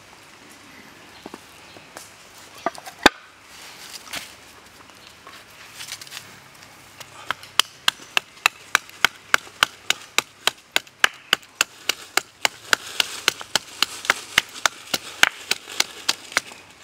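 Wooden pestle pounding garlic in a small carved mortar: a few separate knocks at first, then steady, even pounding at about three strikes a second from about seven seconds in.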